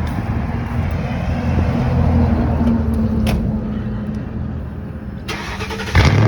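A car engine running at idle, a steady low hum that swells slightly about two seconds in, with a sudden loud sound near the end.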